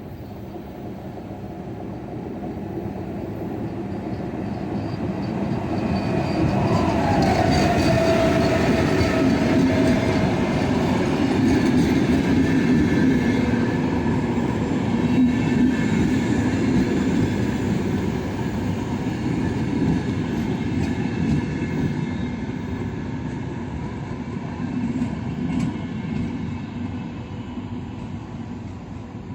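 An intercity train with single-deck coaches pulls into its terminus station. The rumble of wheels and coaches grows over the first several seconds, stays loud for a while, then eases off as the train slows. About seven seconds in, a whine drops in pitch and holds for a few seconds.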